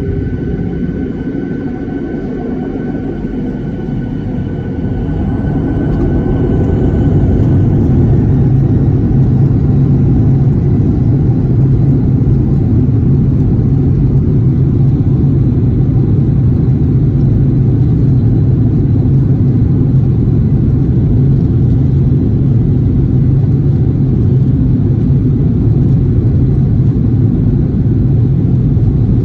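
Aircraft engines at takeoff: a loud, continuous rumble with a steady low hum, swelling about five to eight seconds in and then holding, while faint high whining tones fade out early on.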